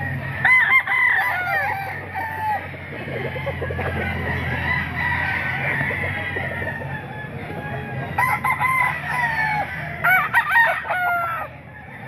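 Several gamecock roosters crowing, in bursts about half a second in, around eight seconds and again around ten to eleven seconds, over steady background noise.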